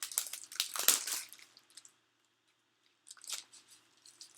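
Crinkling plastic wrapper and rustling paper sheets as a pack of patterned paper is opened and handled, in clusters of crackling during the first second and a half and again about three seconds in.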